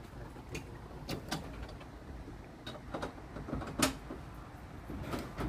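1896 Brownell open wooden streetcar running on its track: irregular clicks and knocks from the wheels and the wooden body over a low rumble. The sharpest knock comes a little under four seconds in.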